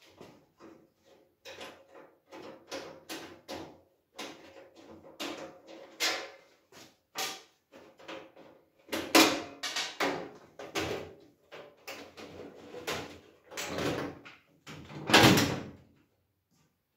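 Painted sheet-metal panels and tray of a Parkside folding welding booth being unfolded and fitted by hand: a string of metallic clanks, rattles and knocks, the loudest about nine seconds in and again about fifteen seconds in.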